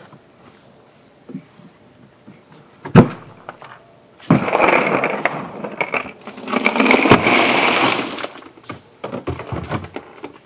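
A sharp knock about three seconds in, then two bursts of clattering and rattling as a 170-quart Icey Tek cooler is tipped onto its side on concrete and loose ice cubes slide and spill out. The ice is still frozen solid, with no meltwater.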